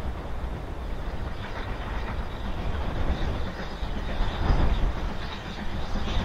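Steam locomotive hauling a train, heard from a distance and getting louder as it approaches.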